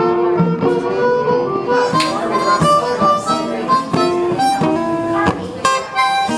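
Blues harmonica playing a run of held and bent notes over a plucked guitar accompaniment: the instrumental opening of a blues song.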